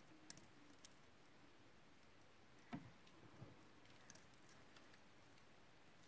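Near silence: room tone with a few faint clicks and one soft knock about three seconds in.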